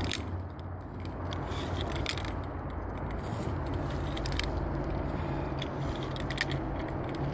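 Metal climbing hardware, carabiners and pulleys of a 3-to-1 haul system, clinking and scraping in scattered sharp clicks as the haul rope is pulled through, over a steady low rumble.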